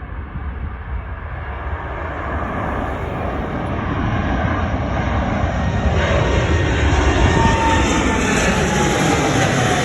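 Jet airliner taking off, its engines at takeoff power growing steadily louder as it approaches, with a faint falling whine in the second half as it passes.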